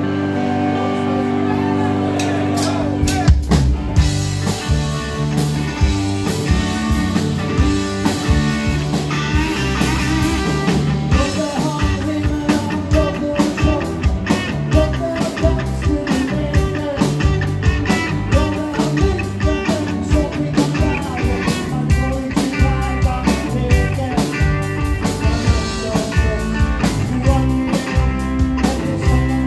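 Live blues-rock band playing electric guitars, bass and drums. The band holds a chord for about three seconds, then the drum kit comes in and the full band plays on with a steady beat.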